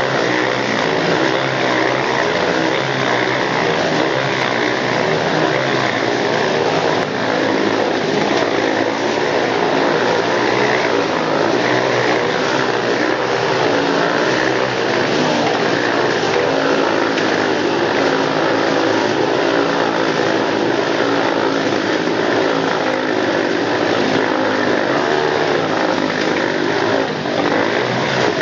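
Several Honda CRF dirt bikes' single-cylinder four-stroke engines running hard together as they circle inside a steel mesh globe of death: a loud, continuous din whose pitch rises and falls constantly. The level dips briefly near the end.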